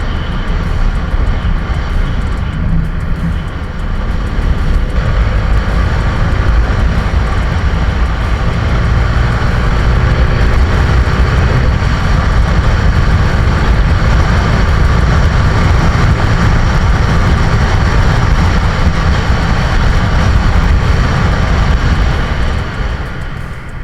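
Motorcycle riding at speed: the engine running under a steady rush of wind on the microphone, growing louder about five seconds in and easing near the end.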